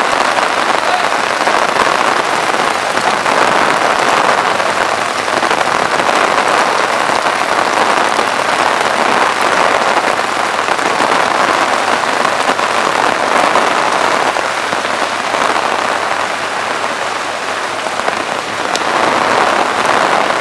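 Heavy rain pouring steadily onto a street, a dense, even hiss that eases slightly for a moment near the end.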